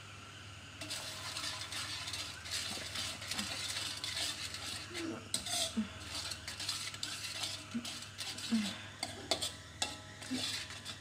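Metal ladle stirring and scraping through bubbling chilli sauce in an aluminium wok, with a sizzling hiss and frequent small clinks of the ladle on the pan, starting about a second in. The sugar just added is being stirred in until it blends into the sauce.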